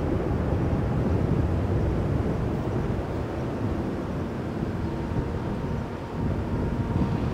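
Low, steady rumble of a Boeing 737 jet's engines on final approach, gear down, heard from a distance, mixed with wind buffeting the microphone.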